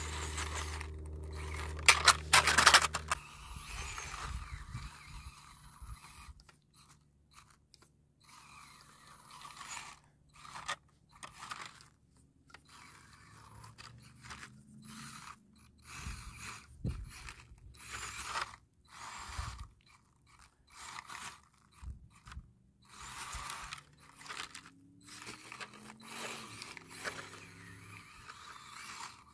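Axial SCX24 RC crawler with a brushless motor driving in short throttle bursts: the drivetrain whines, and the tyres crunch and scrape over the ground. The loudest part is a cluster of sharp hits about two to three seconds in.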